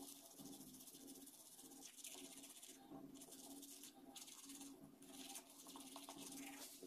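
Manual toothbrush scrubbing teeth: a faint, fast scratchy hiss of bristles, broken by short pauses about three, four and five seconds in.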